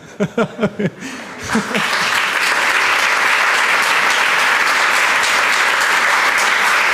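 A short laugh of four quick bursts, then an audience breaks into steady applause about a second and a half in.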